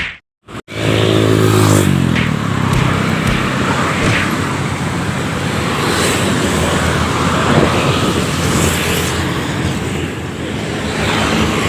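Road traffic: a motor vehicle's engine hum close by, fading over the first couple of seconds, then steady noise of passing traffic.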